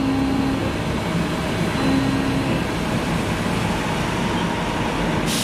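Bridgeport vertical machining centre milling a relief slot in billet aluminium with a 12 mm end mill under flood coolant: a steady spindle and cutting noise mixed with coolant spray. A sharper hiss sets in near the end.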